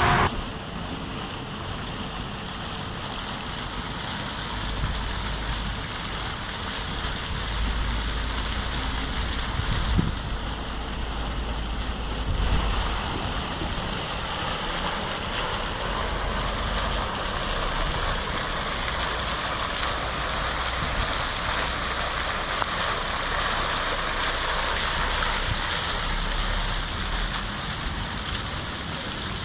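Fountain jets splashing steadily into their basin, with wind buffeting the microphone in low rumbling gusts now and then.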